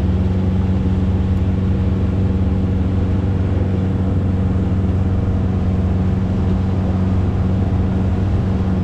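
Boat engine running at a steady speed with an unchanging low hum, together with a steady rush of wind and water.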